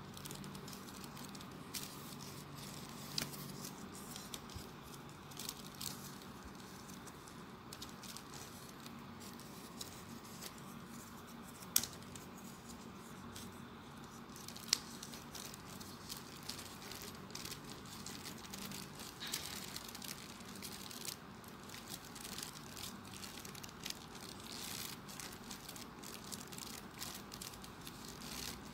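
Folded paper units of a 3D origami model rustling and ticking as they are handled and pushed into place. There are many small scattered clicks, with two sharper ticks about three seconds apart near the middle.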